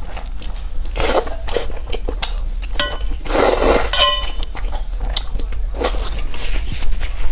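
Close-up eating sounds: chewing and biting with irregular clicks, and utensils clinking against dishes. Short horn-like honks come in twice, just before three seconds and at four seconds.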